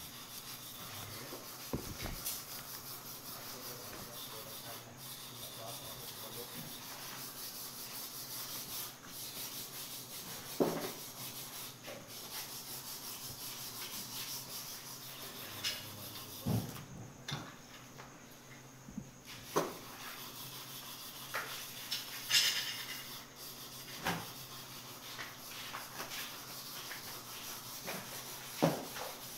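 Knife and meat-handling noises at a butcher's stall: scattered knocks and scrapes over a steady background hiss.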